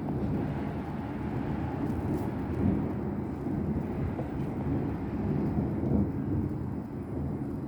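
Rolling thunder rumbling continuously for several seconds, swelling slightly a few times.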